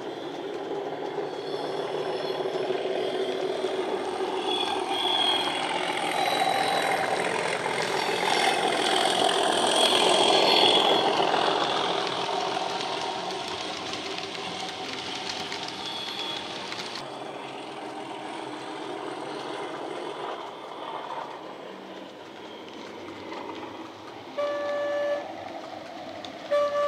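Model Class 37 diesel sound from a LokSound DCC decoder played through the locomotive's small speaker: the English Electric engine running with its pitch rising and falling, loudest as the train passes about ten seconds in, then fading. Two short horn blasts near the end.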